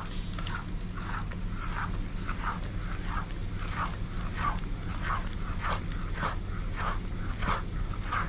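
Spatula scraping and squelching through thick cheese sauce in a frying pan, as it is stirred in strokes of about two to three a second. A steady low hum runs underneath.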